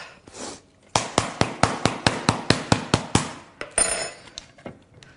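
Upturned metal loaf tin being banged hard and fast, about a dozen sharp knocks at roughly four a second, then a brief metallic scrape with a ring near the end: knocking the tin to free a cake stuck in a tin that was not greased well enough.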